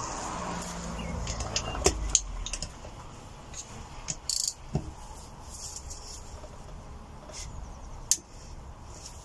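Socket wrench clicking and metal tools clinking as the crankcase bolts of a Honda CB125F engine are undone one by one, with scattered sharp clicks and a brief rattle about four and a half seconds in.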